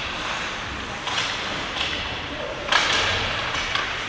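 Ice hockey game sounds in a rink: several sharp stick-and-puck hits, the loudest nearly three seconds in, over a steady hiss of skates on the ice.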